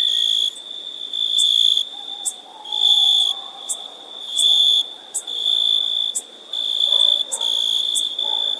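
An insect's steady high-pitched trill that swells louder in pulses about every second and a half, with sharp clicks scattered in between.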